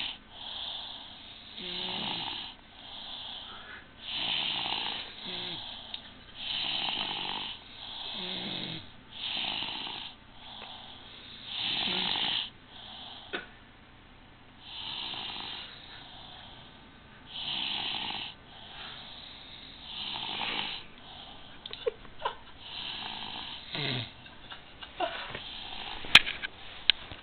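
Two people snoring, with a snore every second or two. In the last several seconds the snores turn fainter and a few sharp clicks and a loud knock come in.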